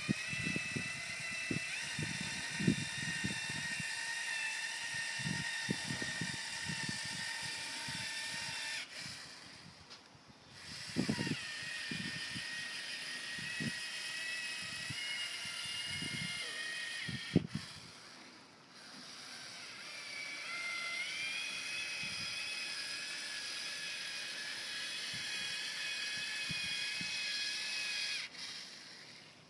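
Cordless caulking gun's small motor whining steadily as it extrudes urethane windshield adhesive. It runs in three long stretches of several seconds with short stops between, and the pitch rises as the last stretch starts. Light knocks and handling clicks come in between.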